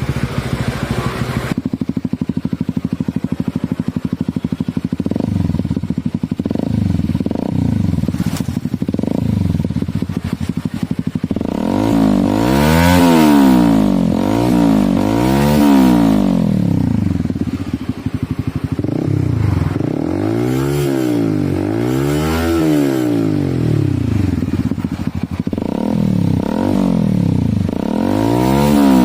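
Honda CB150R's single-cylinder engine breathing through a LeoVince LV One Mini aftermarket exhaust: idling steadily with a few short throttle blips, then revved up and let fall back several times in quick succession from about halfway through.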